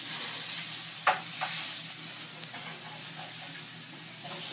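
Food sizzling as it fries on a stovetop, a steady hiss with a couple of short clicks about a second in.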